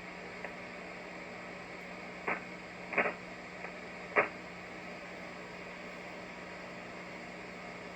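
Steady hiss with a low hum, broken by four short, sharp clicks and knocks between about two and four seconds in, from hands working the radio's knob.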